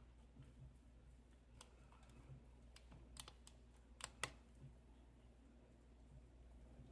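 Faint, scattered metallic clicks of lock-picking tools being handled and set into a Schlage KIK pin-tumbler lock, with a close pair of sharper clicks about four seconds in.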